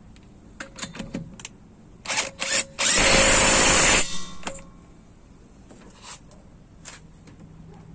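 Craftsman V20 brushless 1/2-inch impact wrench triggered in a few short blips, then run for about a second.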